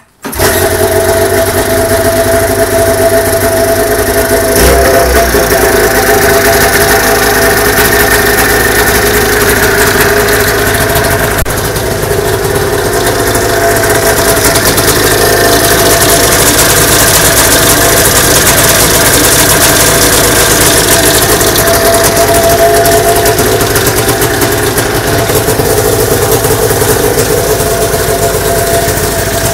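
A 1991 Arctic Cat EXT 550's liquid-cooled two-stroke twin engine comes in suddenly and then runs loudly and steadily at idle. It runs well after a carburettor cleaning and tune-up.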